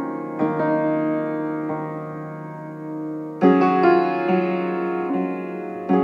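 Background piano music: slow, sustained chords, with a louder chord about three and a half seconds in.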